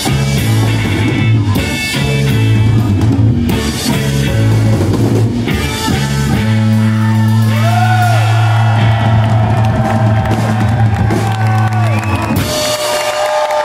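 Loud live rock band with electric guitar, bass and drums. About six seconds in the drums stop and a low bass note is held while the electric guitar wails in long sliding, wavering tones; near the end the bass drops out, leaving the guitar ringing and squealing alone as the song winds down.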